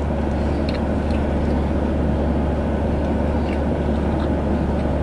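Steady low hum of a car running, heard from inside the cabin, with a few faint clicks of chewing.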